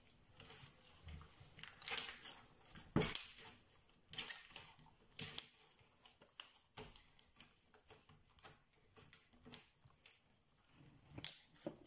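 Clear slime being stretched and squeezed by hand, giving irregular sticky clicks and small pops, a few of them sharper.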